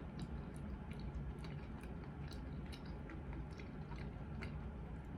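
Chewing fried chicken close to the microphone, with many small scattered clicks from the crunchy breading.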